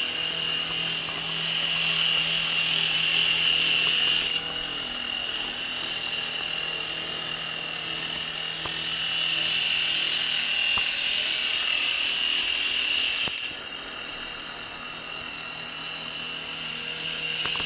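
Small electric toy remote-control helicopter in flight: its motor and rotors give a steady high whine over a low hum. The sound dips slightly in level about thirteen seconds in.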